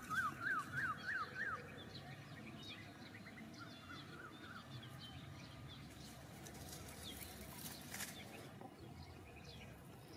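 A bird calling: a quick run of rising-and-falling chirps, about three a second, loudest in the first second and a half, then fainter scattered chirps over low outdoor background noise.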